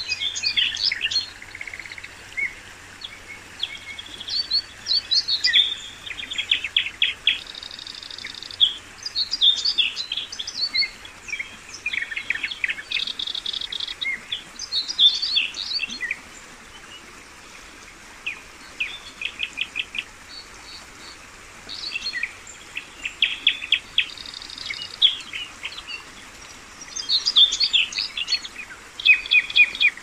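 Songbirds calling throughout, a mix of short chirps and quick trills coming in clusters every few seconds, over the steady faint rush of a shallow rocky river.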